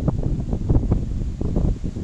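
Gusty wind rumbling against the microphone, a low noise that surges and drops unevenly from moment to moment.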